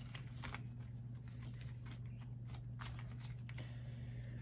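Pokémon trading cards being handled and sorted by hand: soft, scattered rustles and taps, over a steady low hum.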